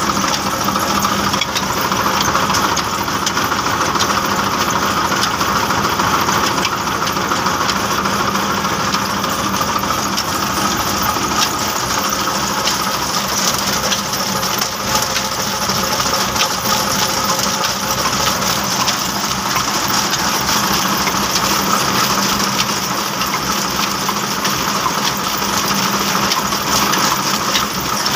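Tractor engine running steadily, driving a line shaft whose flat belts and iron pulleys turn a small chakki flour mill, with a continuous clatter of small clicks from the belts, shaft and mill.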